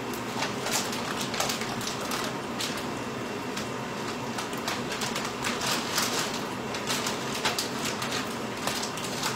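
Hands handling dishes and plastic bags, making irregular crinkles and sharp clicks over a steady hiss.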